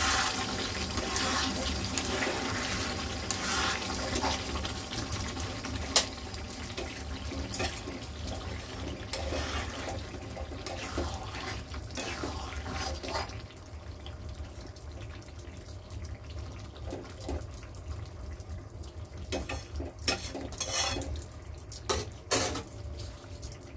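Thick curry gravy sloshing and bubbling in a nonstick kadai as a spoon stirs it, with the spoon scraping and clicking against the pan. After about halfway it is quieter, with a few clinks near the end as the spoon is set down on a steel plate.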